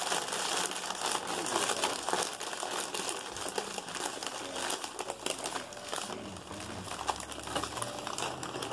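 Plastic snack bag crinkling steadily as it is pulled open and handled and a hand rummages inside.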